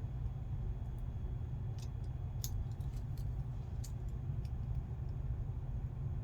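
A few faint, scattered metallic clicks of small tools working a pin-tumbler lock cylinder, over a steady low hum.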